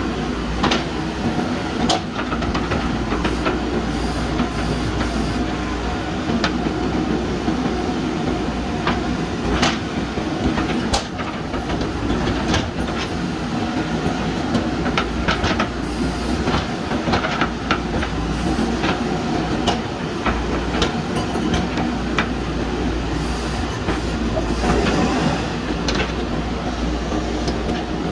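JCB backhoe loader's diesel engine running steadily while digging, with frequent sharp metallic knocks and clanks from the bucket and arm at irregular intervals.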